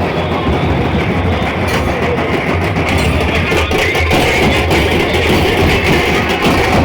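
Loud music played over a big street DJ sound system, with heavy bass.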